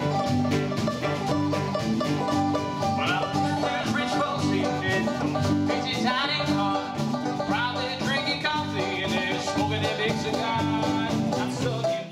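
Live band playing a country-rock tune on electric guitars, bass guitar and drums, with a banjo picking along and a fiddle.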